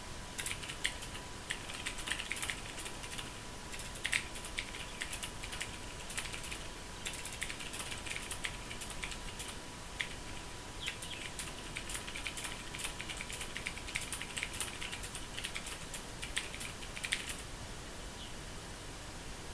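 Fast typing on a Ducky Mecha mechanical keyboard: a rapid, uneven stream of key clicks with a few brief pauses, stopping a couple of seconds before the end. A faint steady high tone sits underneath.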